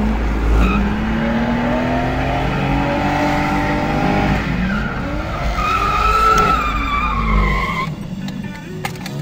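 A BMW E30 Touring's 2.8-litre inline-six, heard from inside the cabin, revs up and down through a drift, with the tyres squealing in a long slide in the second half. The engine and squeal drop away about eight seconds in. The engine is running short of full power because of sensor problems.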